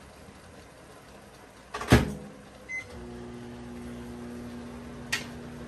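A loud clunk, then a short electronic beep, and a microwave oven starts running with a steady low hum; a lighter click comes near the end.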